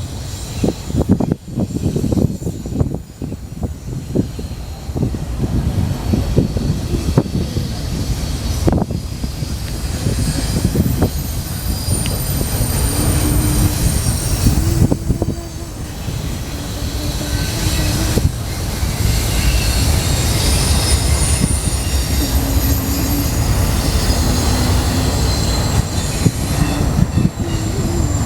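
BNSF intermodal freight train's container cars rolling past with a steady rumble, the wheels clacking over rail joints and crossover switches, and a thin, high wheel squeal coming and going through the second half.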